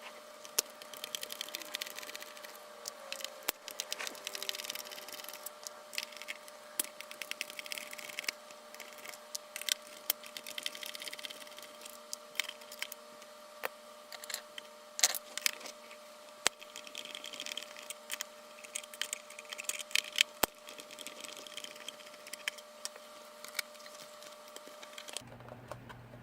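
Small clicks, taps and rattles of a screwdriver turning out the screws of a FrSky Taranis radio transmitter's plastic back case, with quick runs of clicking here and there, over a faint steady hum.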